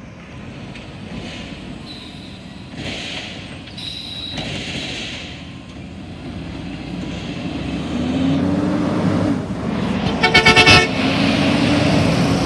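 An automated side-loader garbage truck approaches and passes, its engine and drivetrain growing louder with a whine that rises and falls. Near the end its horn gives a quick burst of short toots.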